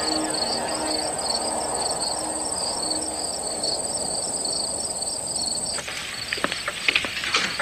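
Night crickets chirping in a regular pulse over a steady high trill. About six seconds in this stops and knives and forks start clinking against china plates.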